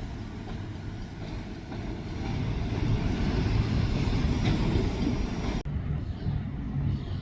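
Heavy loaded freight train rolling past, a steady rumble of the cars on the rails that grows louder about two seconds in. Near the end the sound cuts off abruptly to a duller, lower rumble.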